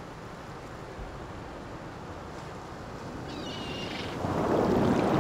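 Sea surf: a steady rushing wash of water that swells into a much louder wave about four seconds in.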